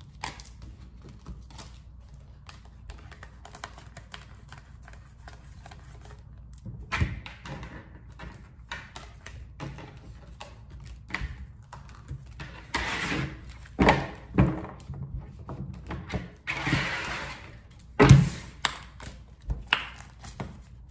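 A deck of tarot cards being shuffled by hand: a stream of quick light card clicks, with a few louder swishes and thumps in the second half.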